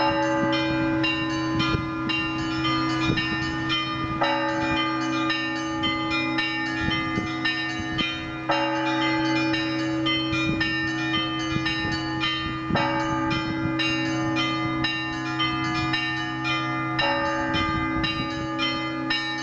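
Russian Orthodox church bells ringing in a full peal: small bells chime in quick, dense strokes over a steady deep hum, while a heavy bell is struck about every four seconds.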